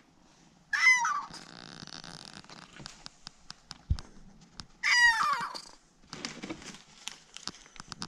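A kitten in a plastic pet carrier meowing twice, about four seconds apart, each meow falling in pitch, with light clicks and rattles between.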